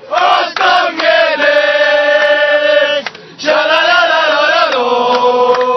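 A group of voices singing a 'sha-la-la-la-laaa' chant together in unison, with long drawn-out notes, breaking off briefly about three seconds in before starting again.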